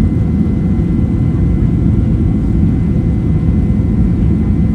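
Boeing 737-900's CFM56-7B turbofan engines at takeoff thrust, heard from inside the passenger cabin as a loud, steady low rumble with a few faint high tones above it.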